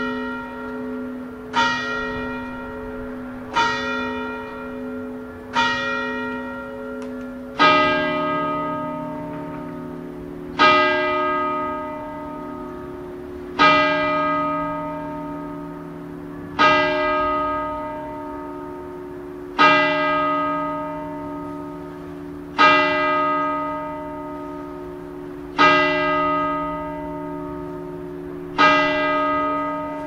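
Church bells tolling. At first one bell is struck about every two seconds; about eight seconds in, a deeper bell takes over, tolling slowly about once every three seconds, each stroke ringing on until the next.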